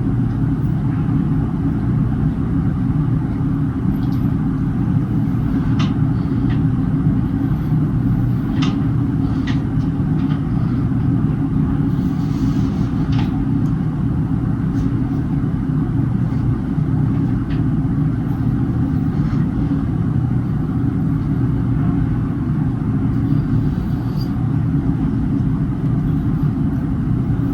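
Steady low mechanical rumble with a few faint clicks on top.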